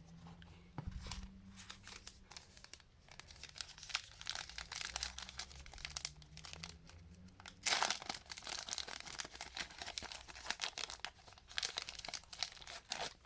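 Foil wrapper of a trading-card pack crinkling and tearing as it is worked open by hand, a stubborn pack, with the loudest rip about eight seconds in.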